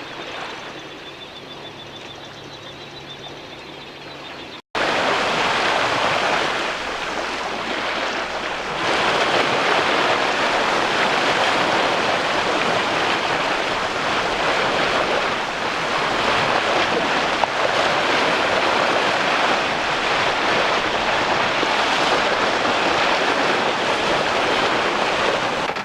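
Waves and wind rushing around a sailboat under way. A quiet stretch with a low steady hum cuts off about five seconds in to a loud, even rush of water and wind, which swells a few seconds later and holds.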